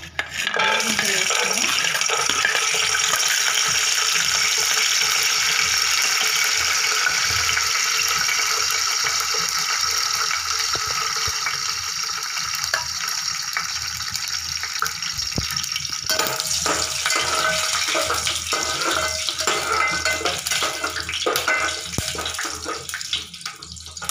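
Raw groundnuts (peanuts) frying in hot oil in an aluminium pot: a steady loud sizzle sets in as they go into the oil. It turns more crackly and uneven about two-thirds of the way through.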